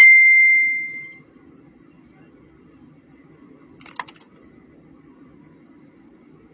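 A single sharp ding that rings out and fades over about a second, then a short clatter about four seconds in, over a faint steady low hum.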